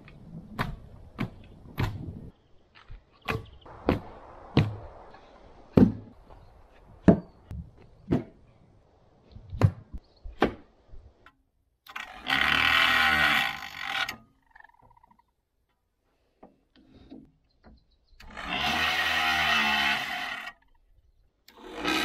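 Scattered knocks and clicks of handling, then a small electric grinder with a stone wheel run against the teeth of a circular sawmill blade in bursts of about two seconds, sharpening them. Two bursts, then a third starting at the very end.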